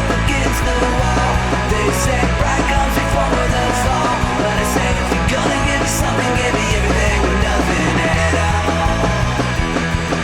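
Recorded punk rock song played loud by a full band, with short crashes about every two seconds.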